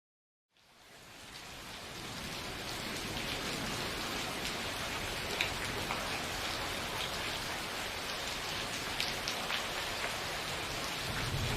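Steady rain fading in from silence about half a second in, with scattered individual drops ticking through it. Near the end a low rumble of thunder begins to build.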